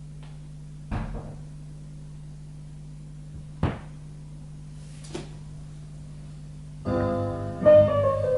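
Stylus of a Koshin GST-801 tonearm on a Denon DP-3000 turntable lowered onto an LP's lead-in groove. A soft thump about a second in and a few sharp pops follow over a steady low hum. Music from the record begins near the end.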